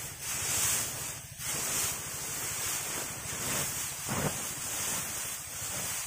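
Dry rice straw rustling as it is gathered up by hand, over a steady rumble of wind on the microphone.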